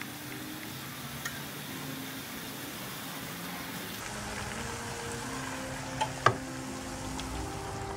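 Tomato and sausage slices sizzling in a frying pan, a steady hiss. A faint tap about a second in, and two sharp clinks about six seconds in, the second the loudest, as egg mixture is poured from a glass jug.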